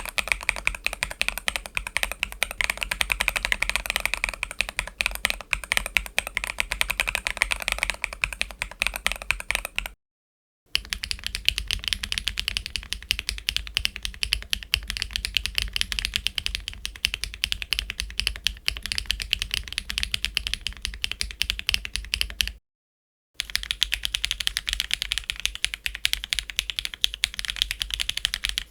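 Rapid typing on mechanical keyboards fitted with HMX Yamatake tactile switches, a dense run of keystrokes. It comes in three takes cut apart by two short silences, about a third and two thirds of the way through, and the first take sounds brighter than the other two.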